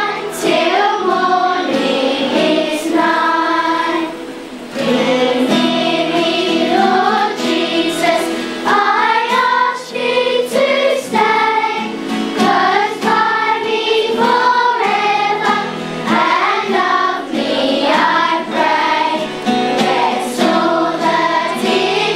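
A school children's choir singing a Christmas carol, with a brief pause between phrases about four seconds in.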